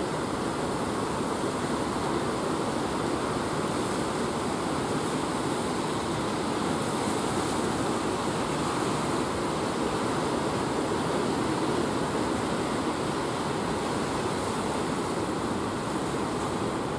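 Surf breaking and washing onto the beach: a steady rushing noise of waves with no letup.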